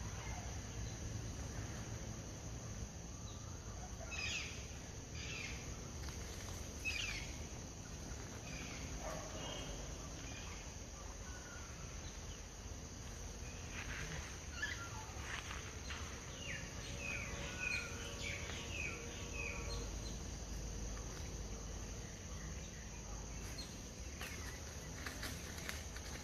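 Faint natural ambience: a steady insect drone under scattered short bird chirps, which come in clusters about four seconds in and again about fourteen to twenty seconds in.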